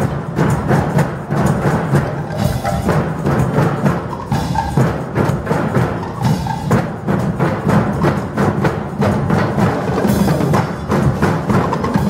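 Street percussion band drumming a fast, unbroken rhythm, the drums built from large barrels on wheels.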